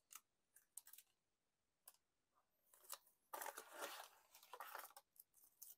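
Faint rustling and light clicks from wrapped snack packaging being handled, with a longer stretch of crinkling about three and a half seconds in.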